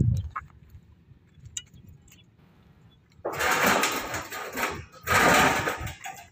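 Handheld electric power tool run in two short bursts on the steel decking work, the first about a second and a half long and the second about a second, after a few light clicks.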